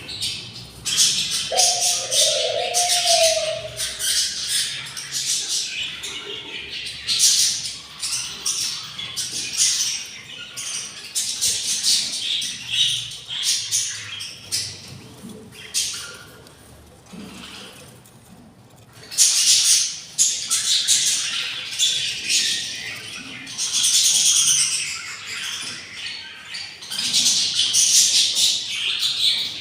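Budgerigar chicks begging for food in the nest: repeated raspy, hissy chirping in bursts, with a short lower call near the start and a brief lull about two-thirds of the way through.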